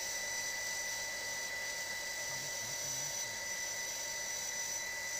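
Electric household water pump (Sanyo-type) running steadily, a constant motor hum with a high steady whine; it runs smoothly.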